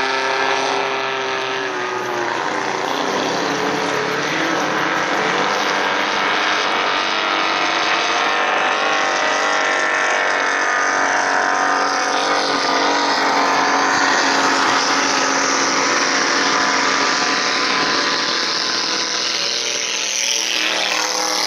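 Outboard motors of small racing boats running hard, a steady engine whine that shifts slightly in pitch as a boat sweeps past.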